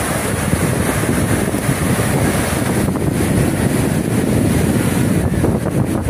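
Rough storm surf washing and foaming up a sandy beach, with wind noise on the microphone throughout.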